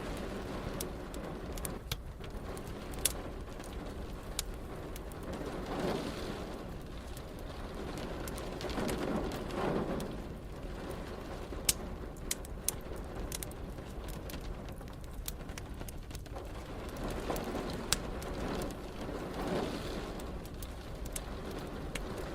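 Wood fire crackling with scattered sharp pops over steady rain. Low rolling rumbles of distant thunder swell and fade three times.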